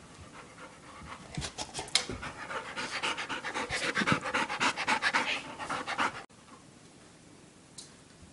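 Labrador retriever panting rapidly and loudly close to the microphone, several quick breaths a second, breaking off suddenly about six seconds in.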